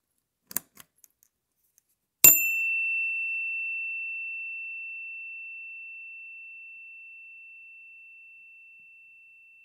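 A few faint clicks, then a single bright chime struck about two seconds in, ringing one high, clear tone that fades away slowly over several seconds.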